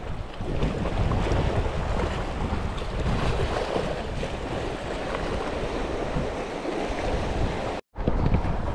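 Small sea waves washing and splashing against shoreline rocks, with wind buffeting the microphone. The sound drops out suddenly for an instant near the end.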